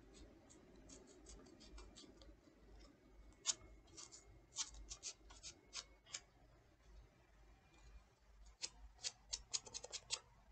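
Sandpaper scratching over a foam squishy toy in short, quick strokes, coming in runs around the middle and near the end, to take off its paint.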